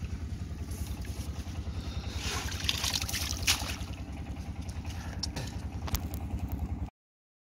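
Small engine idling steadily with a fast, even low chug, with a brief splash of water a couple of seconds in; the sound cuts off abruptly near the end.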